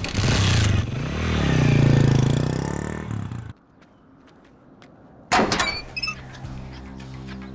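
Motorcycle kick-started, its engine revving up and then dropping back in pitch before cutting off suddenly. A little under two seconds later comes a loud metallic bang with ringing after it, followed by a low steady drone.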